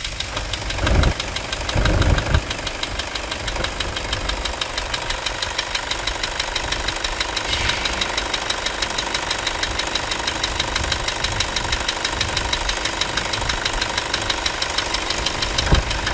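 Toyota Hilux 2.5 turbodiesel engine just restarted, settling over the first couple of seconds into a steady idle with rapid diesel clatter. Its new accessory belt runs over the pulleys without the scraping noise it had before the belt and bearing were replaced.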